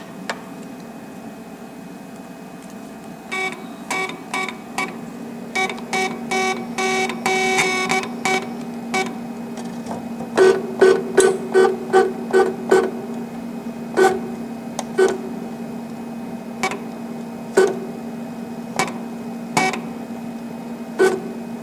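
Liyu SC 631 cutting plotter's motors jogging the head and paper in short steps as its arrow keys are pressed: a long series of brief pitched buzzes, some in quick runs, over the machine's steady low hum.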